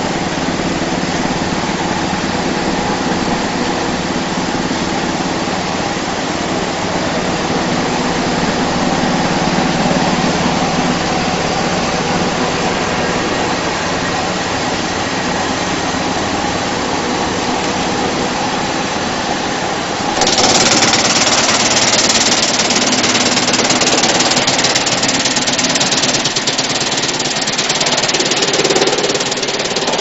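GX218 drum wood chipper running with a steady mechanical drone as a log is fed in. About two-thirds of the way through, a louder, harsher noise starts suddenly and carries on: the drum's blades chipping the log.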